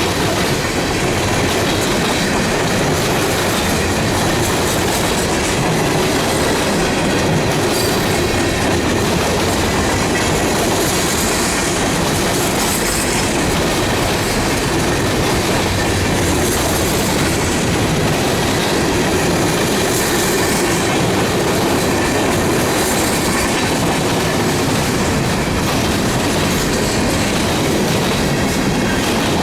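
Freight train cars rolling past at close range, a steady noise of wheels running on the rails.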